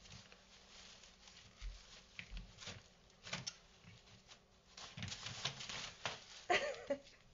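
A puppy scrambling in a plastic basket crate with crumpled paper: paper rustling and paws scuffing the plastic. About six and a half seconds in comes a louder scuffle and bump as it tumbles out over the edge onto the floor.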